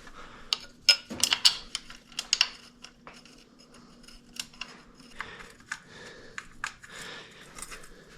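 Scattered sharp metallic clicks and clinks of hand tools and loose parts being handled on a motorcycle during a suspension teardown, a quick cluster in the first couple of seconds and then sparser. A faint steady hum runs underneath for most of it.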